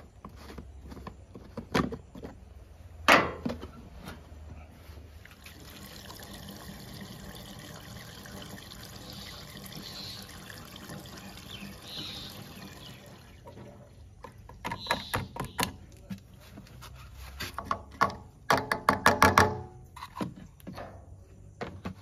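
Diesel pouring from a plastic jerrycan through a funnel into a tractor's fuel tank, a steady stream of about eight seconds. Knocks from the plastic can come before it, and quick rattling knocks from the can and funnel at the filler come after it; those knocks are the loudest sounds.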